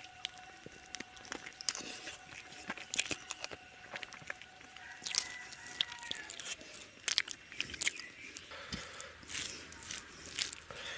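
Close-up eating sounds: chewing, lip smacks and wet clicks from a mouthful of rice and chicken curry eaten by hand. Near the end the fingers squish and mix rice into the curry on a steel plate.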